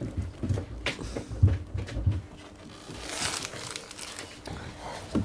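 Rustling, crinkling and light knocks of gloved hands gripping and pulling on a flexible toilet discharge hose, working it loose in a cramped engine bay.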